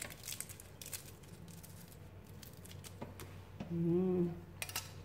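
Faint, scattered clicks of hands handling a plate, with a low steady hum underneath and a short hummed voice sound about four seconds in.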